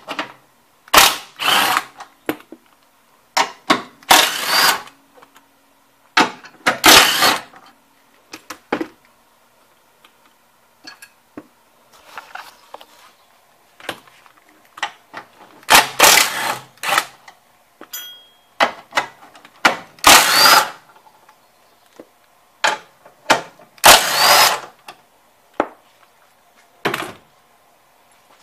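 Cordless power tool running in short bursts of about a second, again and again with pauses, backing out the 13 mm bolts of a Chevy Lumina's engine strut mount.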